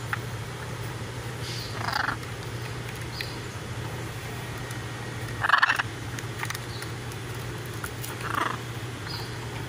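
Blue-and-gold macaws giving three short, soft squawks, about two, five and a half and eight seconds in; the middle one is the loudest.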